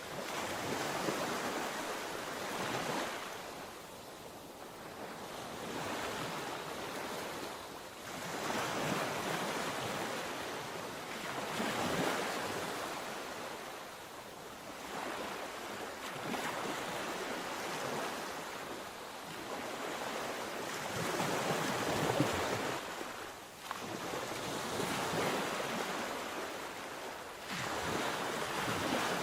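Sea waves breaking and washing on the shore, one surge every three to five seconds.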